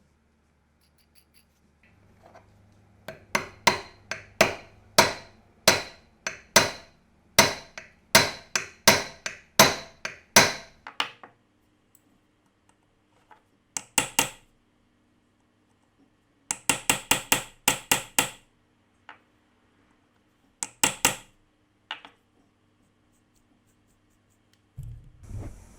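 Hammer tapping a hard workpiece: a run of about twenty quick strikes, each with a short ring, then a few shorter bursts of taps.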